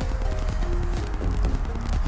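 Background music with a steady low bass and short held notes.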